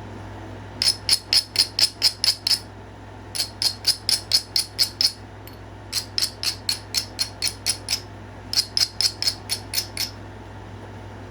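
Flintknapping: quick, sharp clicking strokes of a knapping tool on the edge of a stone point, in four runs of about eight strokes each at four or five a second, while he works on a step fracture.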